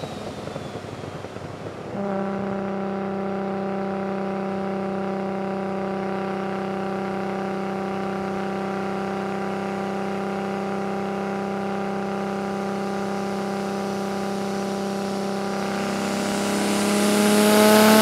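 Nissan Skyline R34 GT-R's built RB32/26 inline-six with a Garrett G42 turbo, heard from inside the cabin. From about two seconds in it drones steadily at constant revs while cruising. Near the end it grows louder and the revs creep up as the car starts to pull, with a rising hiss over the top.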